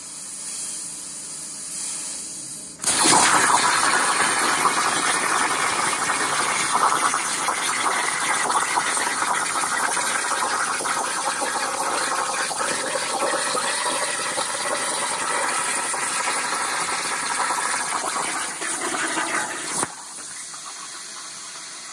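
Plasma arc from an Everlast 82i plasma cutter on an Arc Droid CNC torch, cutting steel plate. After a quieter hiss, the arc strikes suddenly about three seconds in with a loud, steady, harsh hiss that stops abruptly near the end, leaving a quieter hiss as steam rises from the water table.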